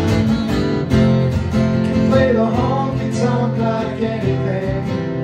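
Two acoustic guitars playing live, strummed chords with a melodic line over them that bends in pitch around the middle.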